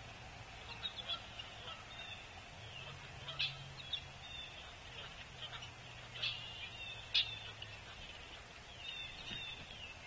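Several wild birds calling and chirping, with a few sharper, louder calls scattered through, over a faint low hum.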